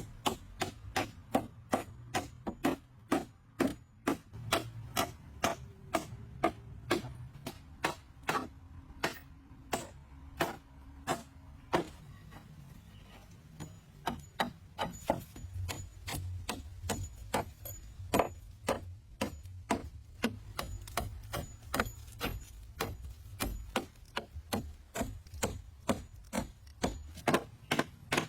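A tool striking wood over and over at a quick, even pace, about two to three strikes a second, with a short pause about twelve seconds in.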